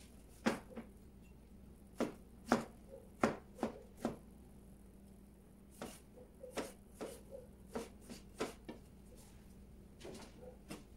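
Chef's knife chopping on a plastic cutting board: irregular sharp knocks, a few heavier ones in the first four seconds, then a quicker run of lighter cuts.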